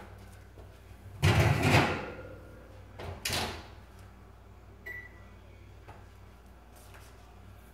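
Kitchen cabinetry being worked: a loud sliding movement that shuts about a second in, and a shorter one about two seconds later. A short high tone sounds near the middle.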